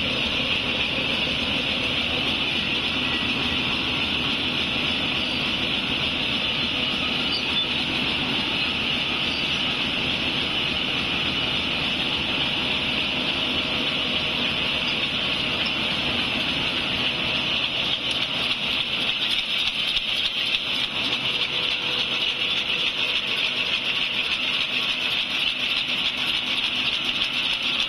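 RZFD-190 small paper bag machine running continuously: a steady mechanical whir with a strong high hiss. In the last third it gets a little louder, with a fast clatter.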